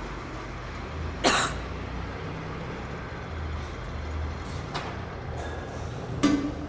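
Metal clanks from the hand lever of a stainless steel plow mixer's discharge door: one loud clank about a second in, then lighter knocks near the end, over a steady low machine hum.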